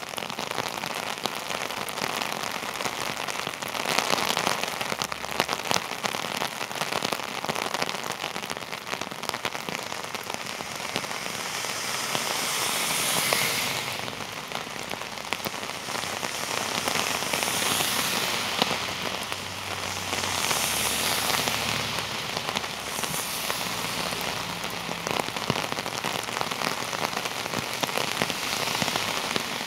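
Heavy rain hitting an umbrella just above the microphone: a dense, steady patter of close drop hits. Several louder swells of hiss come and go in the middle.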